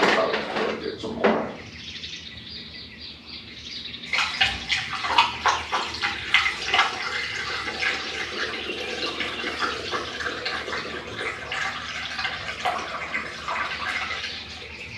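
Coolant poured from a jug through a funnel into a motorcycle radiator: the liquid splashes and bubbles continuously, starting about four seconds in and easing off near the end.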